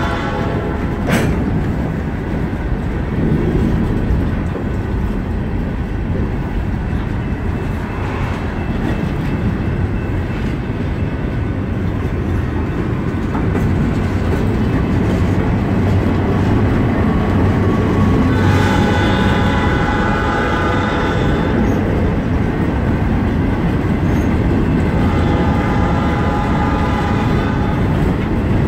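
Freight train of boxcars rolling past close by: a steady rumble of steel wheels on rail, with a sharp clank about a second in. Twice in the second half a train horn sounds a long blast of several notes, well behind the passing cars.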